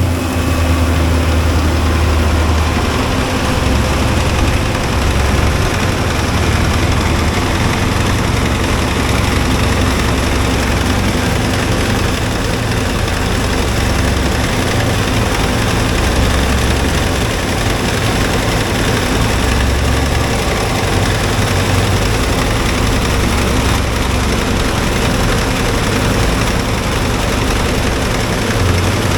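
Heavy farm machinery running steadily: a large engine's low hum under an even mechanical rush that does not change.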